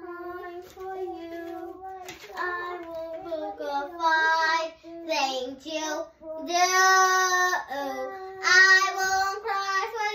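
A child singing, holding long notes that slide up and down.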